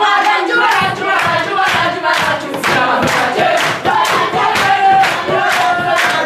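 A group of children singing together in a chant, clapping their hands in time at about two claps a second.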